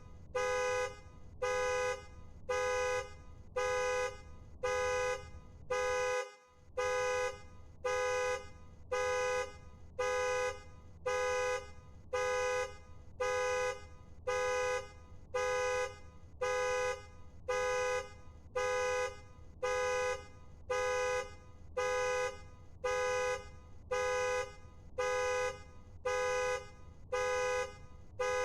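Car alarm sounding the car's horn in short, even honks, about one a second, over and over.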